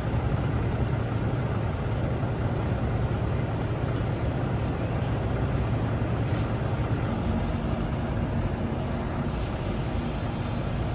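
Steady low mechanical drone of a feed mill yard, with a constant low hum from running machinery and engines.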